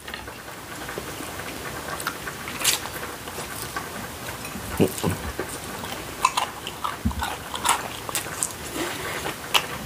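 Close-up eating sounds: irregular crisp crunches and chewing as boneless fried chicken is bitten, with noodles being slurped.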